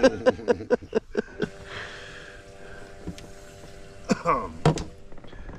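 A steady hum of several held tones lasting a few seconds, with short bursts of a person's voice at the start and again near the end.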